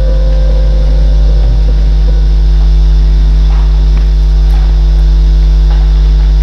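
Loud, steady electrical mains hum through the hall's PA loudspeakers, left on after the laptop's video playback ends. The tail of the video's music dies away in the first second, and a few faint knocks follow.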